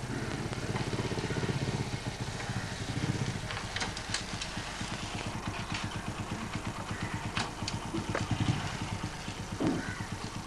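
Small motorcycle engine running as the bike rides up and slows to idle, with a steady low putter and a few sharp clicks.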